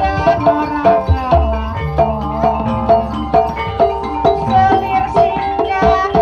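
Gamelan music accompanying an ebeg horse dance: tuned mallet percussion striking a fast, repeating melodic pattern over low drum beats.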